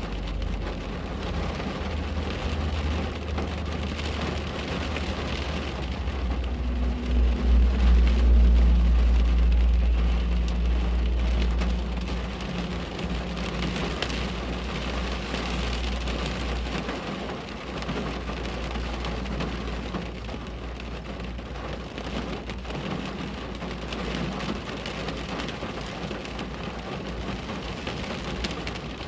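Steady rain pattering on a window pane. A deep low rumble swells in about six seconds in, peaks a few seconds later and fades away over the next several seconds.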